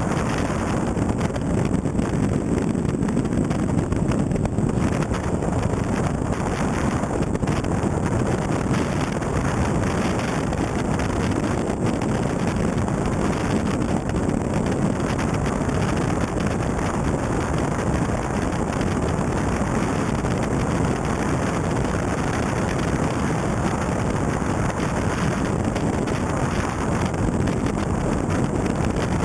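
Wind rushing over an exterior camera's microphone as a Mitsubishi Lancer Evo III rally car drives at speed on a gravel stage, its engine and the tyres on the gravel blended into a steady dense roar.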